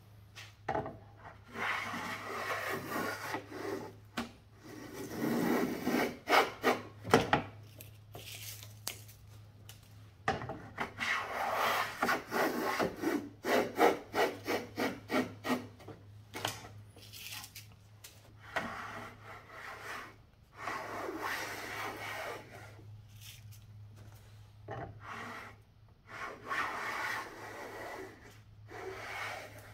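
Freshly restored vintage metal hand plane cutting shavings along the edge of a board clamped in a vise. It is rasping wood in several runs of quick strokes with short pauses between them.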